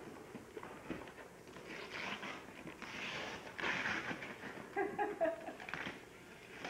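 Wrapping paper and gift packaging rustling and crinkling in irregular bursts as it is handled, with a short high-pitched vocal sound about five seconds in.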